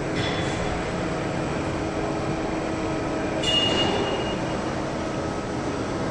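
Steady hum and hiss of assembly-line machinery, with short high squeals near the start and a louder one about three and a half seconds in.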